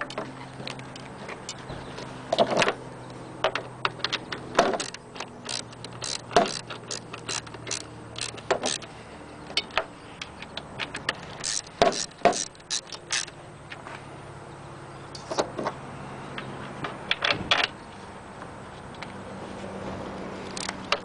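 Ratchet wrench clicking in short irregular runs as the 9/16 bolts holding a Hayward pool pump's seal plate to its housing are tightened in turn, over a faint steady low hum.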